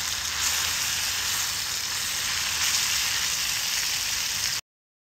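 Food frying in oil in a skillet over a fire, a steady sizzle that cuts off suddenly near the end.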